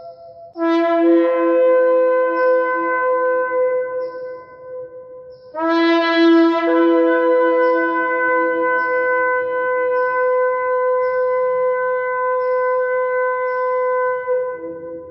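Ram's-horn shofar blown in two long blasts, the first about five seconds and the second about nine. Each blast starts on a low note and jumps up to a higher one, and the second falls back to the low note just before it ends.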